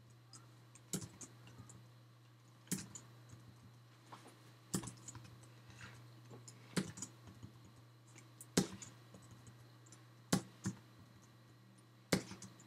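Typing on a computer keyboard: a sharp key click about every two seconds, each followed by a few lighter taps, over a low steady hum.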